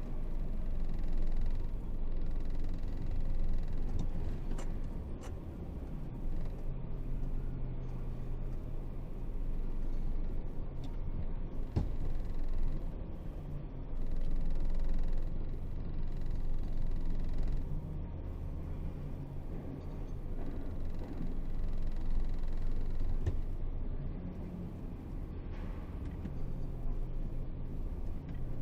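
Diesel engine of an Isuzu 8x4 30-ton truck running under way, a low rumble whose level swells and eases every few seconds, with a couple of faint knocks.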